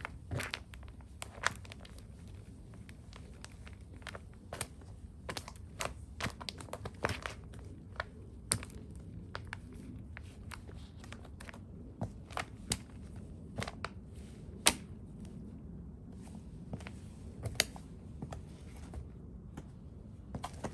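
Beer can being crushed and ground underfoot by stiletto boots on wet concrete: irregular crinkling and crackling of the thin metal, with scattered sharp clicks, one or two a second.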